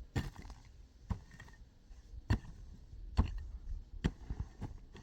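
A series of sharp knocks or impacts, roughly one a second at an uneven pace, like hand work with a tool.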